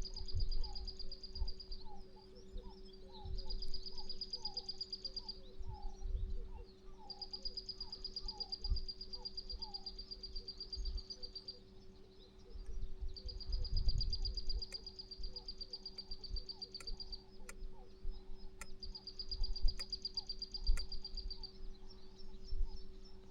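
Outdoor dawn ambience of birds and insects: a high pulsing trill that repeats in bouts of a few seconds, and a run of short, lower chirping calls in the first half. Under it run a steady low hum and gusts of wind on the microphone.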